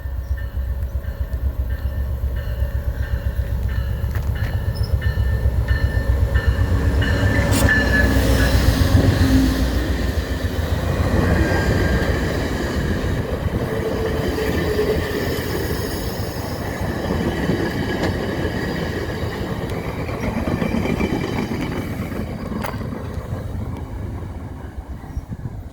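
VIA Rail diesel passenger train rolling through the station on the adjacent track, with a steady low rumble of locomotive and cars and wheel-on-rail noise. It grows loudest a third of the way in and fades toward the end as the train moves off.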